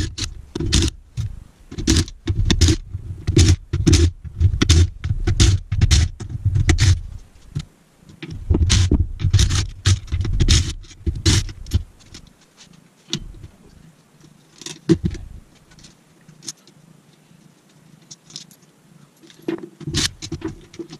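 Ryobi cordless driver running in many short trigger bursts, undoing the bolts on an aluminium manual gearbox case so it can be split. The bursts come quickly one after another for about the first ten seconds, then more sparsely with pauses between them.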